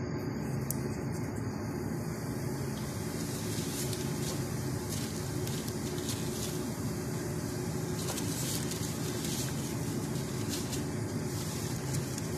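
Donut dough frying in a pan of hot oil, a gentle sizzle with small crackles that pick up a few seconds in, over a steady low hum.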